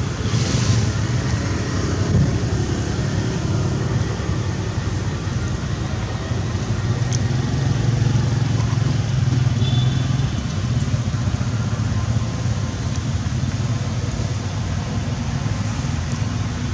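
A steady low rumble of an engine running, even in level throughout.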